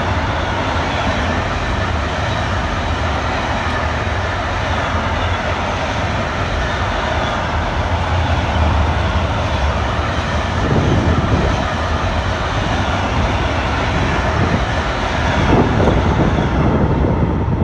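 Freight train of pocket wagons carrying lorry semi-trailers passing at speed on electrified main line, a loud, steady rush of steel wheels rolling on the rails.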